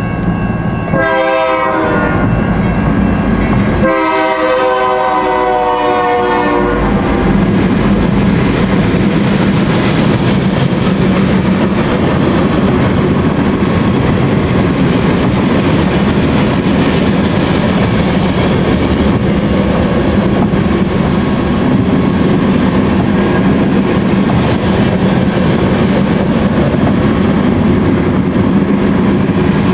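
Locomotive air horn sounding a chord twice, a short blast about a second in and a longer one from about four to seven seconds in. Then loaded coal cars roll past with a steady rumble and clatter of wheels on rail.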